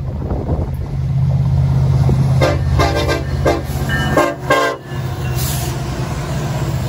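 Arkansas & Missouri No. 71 diesel locomotive passing close by at the head of a freight train: a steady low engine drone, with the air horn sounding a run of four blasts from about two and a half seconds in, ending just before five seconds.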